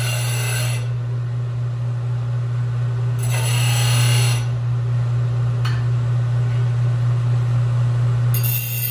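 Stationary power sander running with a steady motor hum, while a metal exhaust canister inlet is pressed against it in short passes: three bursts of abrasive grinding noise, at the start, about three seconds in, and near the end.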